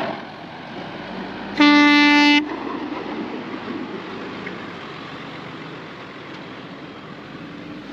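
A vehicle horn honks once, a single steady blast of under a second about a second and a half in, followed by steady noise of a vehicle under way that slowly fades.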